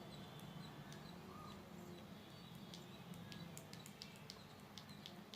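Near silence: low room hum with a few faint, short clicks, the earphones' in-line volume buttons being pressed.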